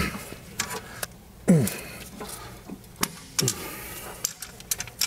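Clicks and clunks of a rear coil spring being pushed by hand into its seat on a BMW E36 M3's rear suspension, with two brief sounds falling in pitch, the louder about a second and a half in.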